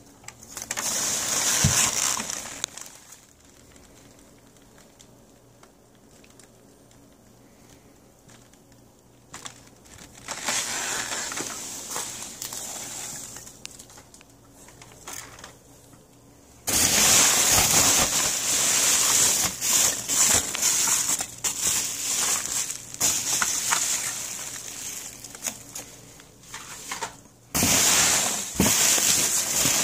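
Polystyrene foam packing peanuts rustling and crackling as hands dig through a box full of them, in several spells with quiet gaps between, loudest and longest in the second half.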